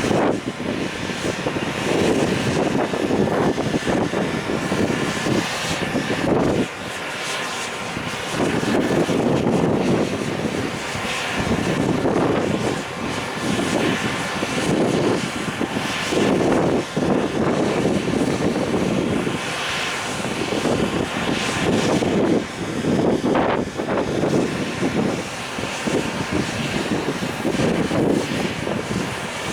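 Container freight train behind an EF510 electric locomotive rolling past. The wheels rumble and clatter in a swelling rhythm that repeats every second or two.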